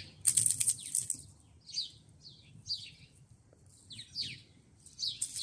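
A songbird giving short, high, downward-sweeping chirps, roughly one a second. A second of loud rustling noise comes near the start.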